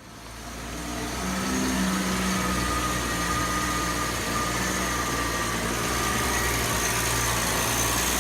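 BMW X5 E70 running steadily after repair of its transfer case bearing and driveshaft, with a faint high whine over the engine note; the sound comes up over the first second or so, then holds even.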